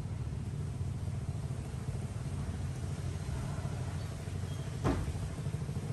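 A small engine running steadily with a low, fast-pulsing rumble, and a brief squeak falling in pitch about five seconds in.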